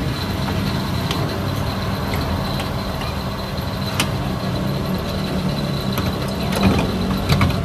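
Fuel dispenser pump running during refuelling: a steady low hum with a faint high whine and a few clicks from the nozzle. It cuts off abruptly at the very end, as the pump stops.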